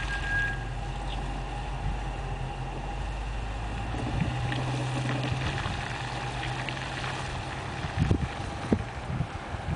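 The 6.1-litre Hemi V8 of a 2009 Dodge Challenger SRT-8 running steadily at low speed as the car drives away, fading in the second half. Wind noise on the microphone, with a few low thumps near the end.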